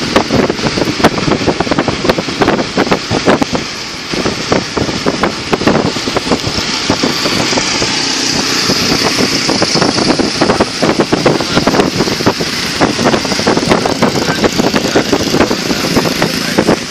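A car driving on a wet road: a steady hiss of tyres through water, with a dense, irregular crackle of clicks throughout. The hiss swells in the middle.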